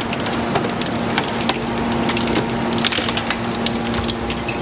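Hydraulic scrap metal shear baler compressing a load of scrap: metal crackling and snapping repeatedly as it is crushed, over the steady hum of the hydraulic power unit.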